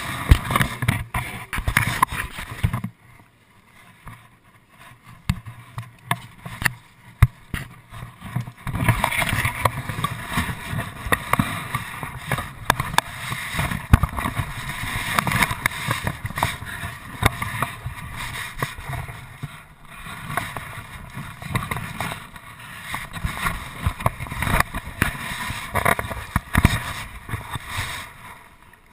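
Rubbing, scuffing and knocking against a GoPro HD2 mounted on a border terrier's back as the dog moves about: irregular rumbling scrapes with frequent sharp clicks. The noise drops right down from about three to eight seconds in, then picks up again.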